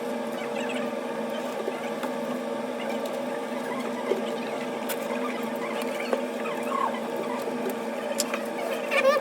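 Steady electrical or motor hum, with scattered light clicks and small squeaks over it, a cluster of clicks near the end.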